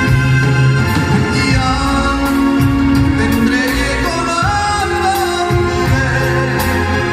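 Live band playing a song with a singer's voice over it, a steady beat and bass underneath.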